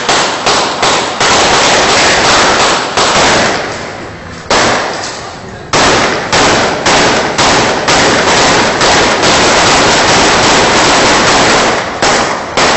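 Celebratory gunfire: shot after shot a few tenths of a second apart, merging into stretches of dense, overlapping fire from several guns, with a brief lull about four to five seconds in.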